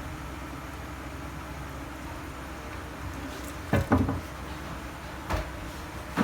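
Knocks and clunks from handling toilet tank parts, two loud ones close together about halfway through, then a lighter one and a last one at the end, over a steady background hiss.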